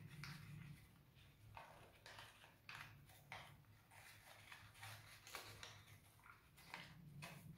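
Faint, scattered crinkles and rustles of folded paper being handled and creased as a point of an origami model is sunk in. A low steady hum runs underneath.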